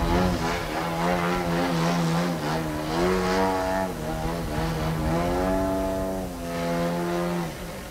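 Twin-cylinder two-stroke gasoline engine of a large RC aerobatic plane (DLE-111 with a KS muffler) running in flight. Its pitch steps up and down several times with the throttle, and the sound drops off sharply near the end.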